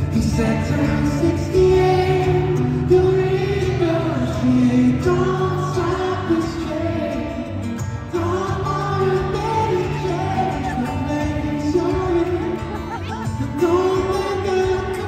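Live solo acoustic guitar, a steel-string played steadily under a man's singing voice, with the reverberation of a large hall.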